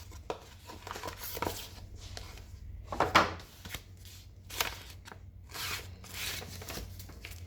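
Hands handling a replacement phone screen and its packaging: scattered rustles and light knocks, the loudest about three seconds in.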